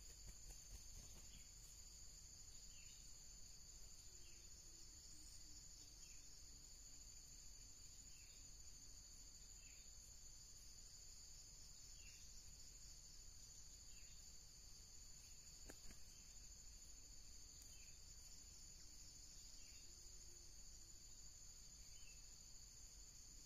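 Faint, steady, high-pitched insect drone of crickets or cicadas, with a short high chirp repeating every second or two and a single sharp click about two-thirds of the way through.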